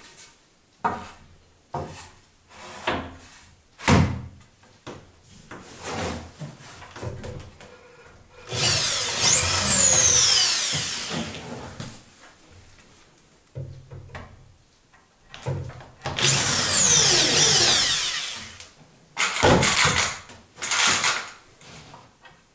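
Electric drill boring into the pine slats of a wooden bench, run twice for a few seconds each, its high whine climbing and then dropping in pitch as the bit loads up. Wooden knocks and clatter from the slats being set in place come before and after.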